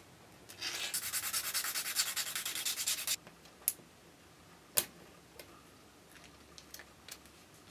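Rapid back-and-forth rubbing on a stack of small sheet parts held together with super glue, shaping them as one, for about two and a half seconds. Then a few light clicks and one sharper click as the glued layers are pried apart with tweezers.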